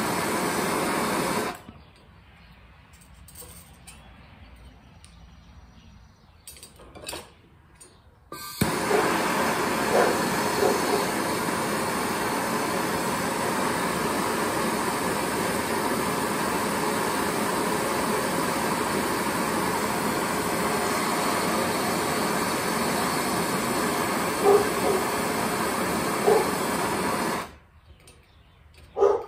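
Handheld propane torch burning with a steady hiss, its cylinder getting low on propane. The hiss stops about a second and a half in, starts again abruptly about eight and a half seconds in, and stops near the end.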